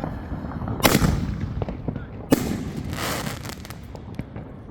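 Fireworks going off: a sharp bang about a second in and another just over two seconds in, the second followed by about a second of crackling, over a continuous low rumble of more fireworks.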